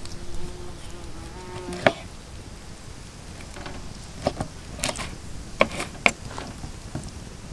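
A flying insect buzzes steadily close by for about the first two seconds. Then come scattered sharp clicks and taps of a knife against a wooden cutting board as raw chicken is cut apart, several of them close together in the second half.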